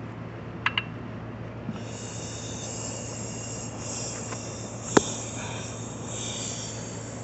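A few short metallic clicks from working on the engine by hand while turning it over, including a pair of clicks near the start and one sharp click about five seconds in, over a steady low hum.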